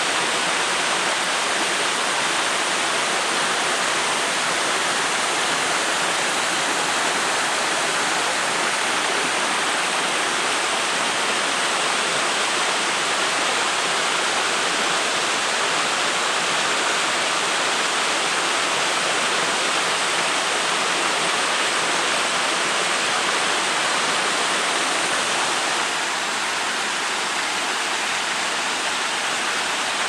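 Waterfall cascading down a rock face: a steady, loud rush of falling water, dipping slightly near the end.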